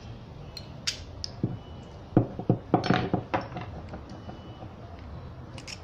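Light metallic clicks and clinks of a steel connecting rod big end and its bearing shell being handled as the old rod bearing shell is worked out by hand, with a quick run of clicks about two to three seconds in.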